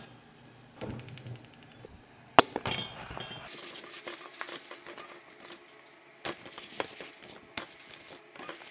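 Clicks, clinks and knocks of small hard objects being handled. A rapid ratchet-like run of ticks comes about a second in, and the loudest event, a sharp knock, comes a little later.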